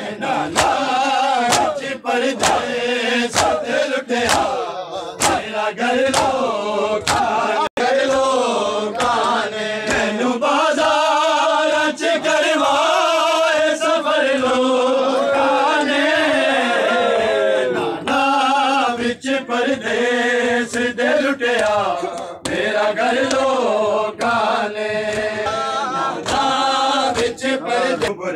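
A crowd of men chanting a Muharram lament (noha) together, with a regular beat of open-hand slaps on bare chests (matam) about twice a second.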